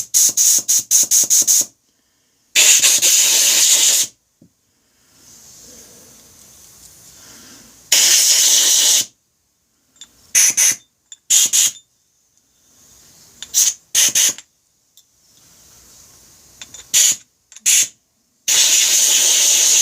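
Compressed-air blow gun blasting through a motorcycle brake caliper's fluid passages to clear them, in hissing bursts: a rapid string of short puffs at the start, then several longer blasts of about one to one and a half seconds with short puffs between, separated by silence.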